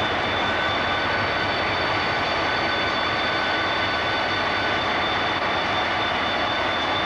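Diesel locomotive engine running steadily, a low drone with a thin high whine over it, as the locomotive moves slowly.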